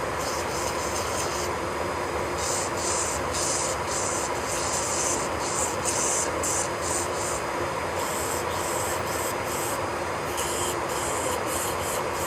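Electric nail drill running steadily with a faint whine, its bit rubbing against a fingernail in short repeated strokes that come and go as a hiss.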